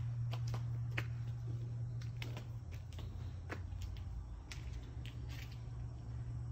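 Scattered light footsteps and taps, about one or two a second, over a steady low hum, as someone walks across a concrete porch and a metal door threshold onto a bare vinyl plank floor.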